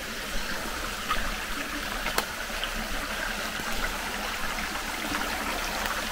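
Small mountain brook flowing and trickling steadily, with a single sharp click about two seconds in.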